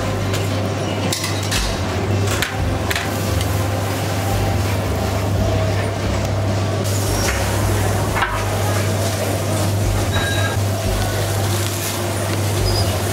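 Steak sizzling on a charcoal grill's wire grate, with metal tongs clicking against the grate several times in the first few seconds and once more past the middle, over a steady low hum.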